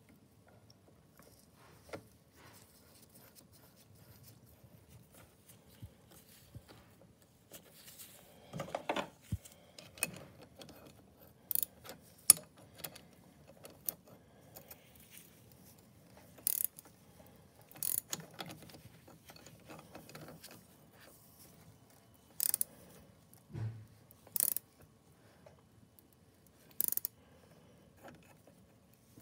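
Ratchet wrench turning the press screw of a chain riveting tool on a new motorcycle drive chain: scattered short, sharp metallic clicks and clinks of the steel tools, a few seconds apart, with quieter handling in between and a duller knock in the last third.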